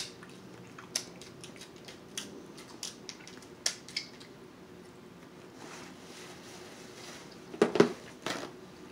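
Snow crab leg shells cracking and snapping as they are cut with kitchen shears and broken open by hand: sharp snaps every second or so, then a louder cluster of cracks near the end.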